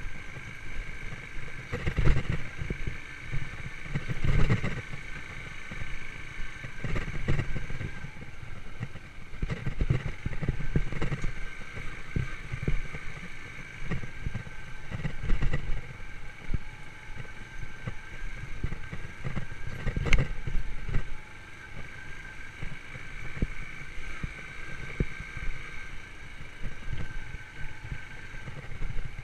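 Yamaha YBR125's single-cylinder four-stroke engine running steadily while riding, with a constant rumble and a steady whine, broken by thumps and knocks every few seconds.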